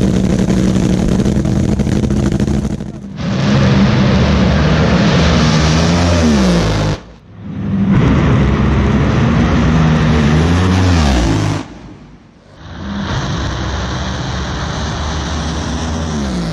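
Nitromethane-fuelled dragster engine running loud and steady, heard in several separate stretches. Each stretch ends with the engine note falling away before the sound cuts off and starts again.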